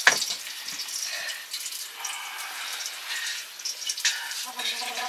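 Food sizzling in a cooking pan: a steady hiss, with a sharp knock right at the start and a brief voice near the end.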